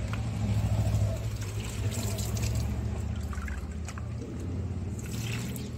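Water sloshing and trickling in a plastic basin as hands work a clay Ganesh idol about under the water to dissolve it, over a steady low rumble.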